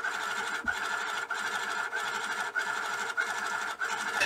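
The AIM-65's built-in thermal printer printing out a BASIC program listing line by line. Each line is a steady buzz, with a short break about every 0.6 s between lines.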